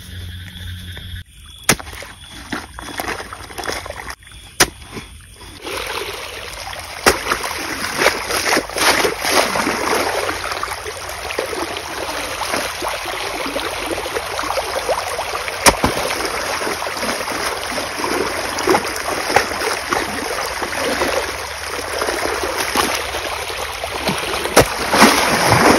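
Irrigation water rushing and splashing through an earthen field channel, starting in earnest about six seconds in, with a few sharp knocks of a shovel striking wet soil.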